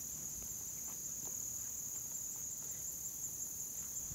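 Insect chorus in woodland: a steady, unbroken high-pitched trill, with a few faint soft steps or rustles in the undergrowth.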